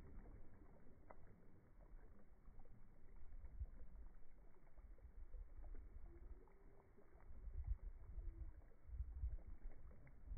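Faint, gusting low rumble of wind on the microphone over open water, swelling a few times toward the end.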